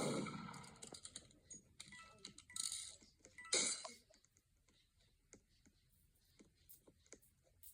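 Irregular light clicks and taps, with a louder knock at the start and a short hiss about three and a half seconds in.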